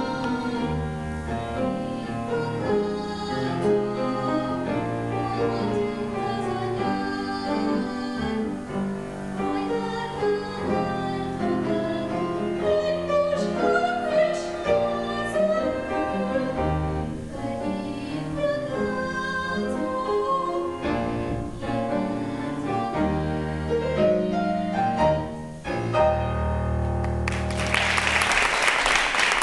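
A singer performing a song into a microphone with instrumental accompaniment. The song ends about two seconds before the end, and the audience breaks into applause.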